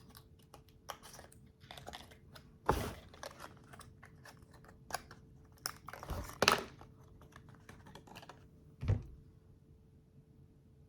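Small clicks, taps and rustles of a skincare sample being opened and handled, with three louder knocks about three, six and nine seconds in, over a faint steady hum.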